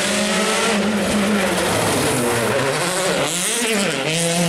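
Rally car engine at high revs that drop and waver a little past halfway, as the car slows for a corner, then rise again near the end as it accelerates away.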